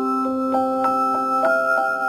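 Instrumental background music: a gentle melody of ringing notes, each starting sharply and then sustaining, a few notes a second.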